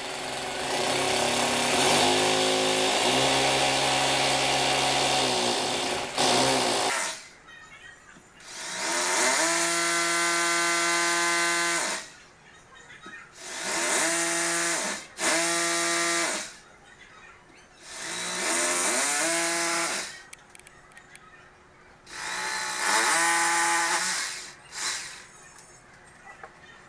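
Electric drill run in five bursts of a few seconds each. Each burst spins up, holds a steady whine, then winds down.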